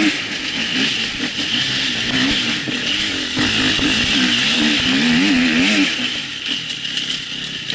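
Husqvarna enduro motorcycle engine heard on board, its revs rising and falling in quick succession as the throttle is worked, with a steady hiss. For the last couple of seconds the engine note drops back and softens.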